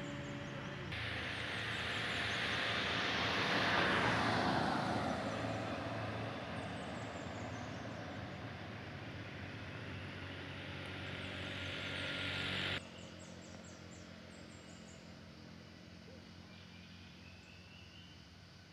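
A road vehicle's engine running as it passes close: loudest about four seconds in, with a falling pitch as it goes by, then easing off. About two-thirds of the way through the sound cuts off sharply, leaving a quieter, steady engine hum.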